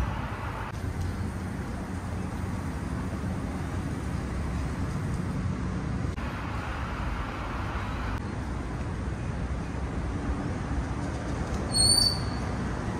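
Steady low rumble of road traffic, outdoor street ambience, with a brief high chirp near the end.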